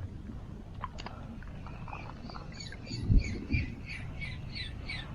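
A bird calling a rapid series of short, slightly falling chirps, about three a second, starting about two seconds in. A couple of low bumps sound about halfway through over a steady outdoor background.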